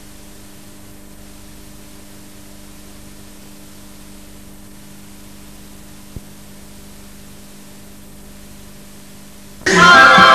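Steady tape hiss with electrical mains hum from an old videotape recording, and a single faint click about six seconds in. Near the end, loud music starts abruptly.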